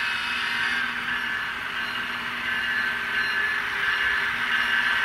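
Sound decoders in N scale GE ET44AC model locomotives playing the GE GEVO diesel engine sound through tiny speakers, thin and with little bass, mixed with the running noise of the model train on the track. It grows louder near the end as the locomotives come past.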